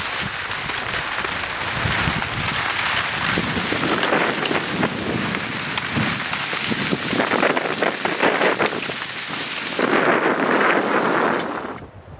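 Cross-country skis hissing and scraping along a groomed snow track, a dense crackling noise that cuts off abruptly near the end.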